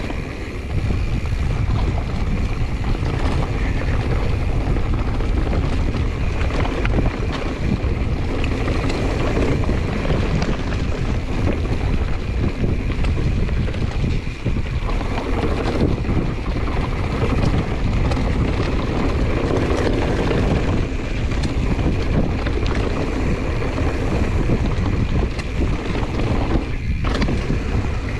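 Wind rushing over the microphone of a mountain bike riding a dirt singletrack, mixed with steady tyre noise and frequent clicks and rattles from the 2021 Giant Trance X 29 over the bumps.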